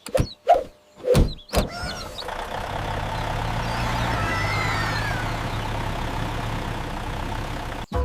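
About four quick knocks in the first two seconds, then a steady low rumble like a motor running.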